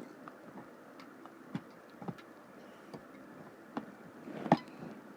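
Irregular light plastic clicks and taps, about one every half-second to second, from handling a rubber-band bracelet loom kit; the loudest is a sharp click about four and a half seconds in.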